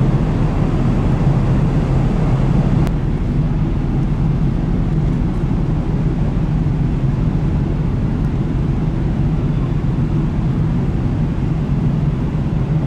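Steady low rumble of a ferry's engines, with water churning along the hull as the ship pulls away from its berth.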